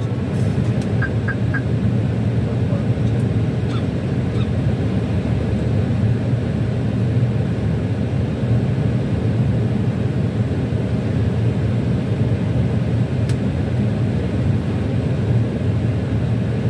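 Steady low rumble of airflow and engines heard inside an Airbus A321 cockpit descending on final approach.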